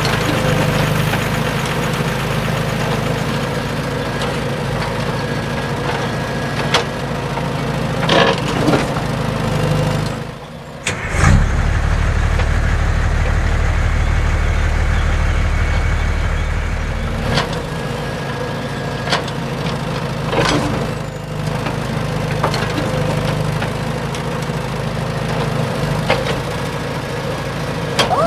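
Motor of a DIY mini tractor running steadily with scattered sharp clicks. It drops out briefly about ten seconds in, then comes back deeper and stronger for about six seconds before settling to its earlier hum.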